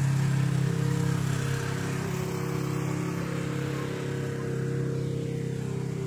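An off-road rig's engine running at a steady speed, holding one even pitch with no revving.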